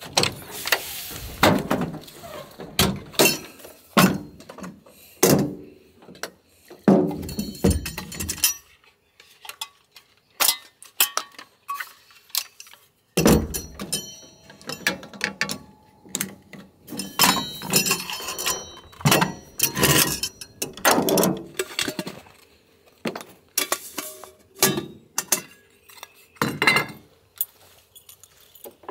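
Repeated clinks, clanks and knocks of camp gear being handled on a truck bed, including a portable butane stove being set up with its gas canister fitted.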